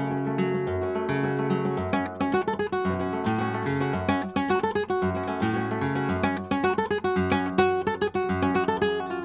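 Background music: acoustic guitar played with quick plucked and strummed notes.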